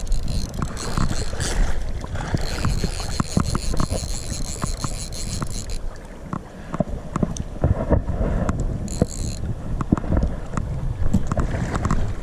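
Water sloshing and splashing with wind rumbling on the microphone while a hooked trout is fought. A steady high whine runs through the first half and cuts off about six seconds in.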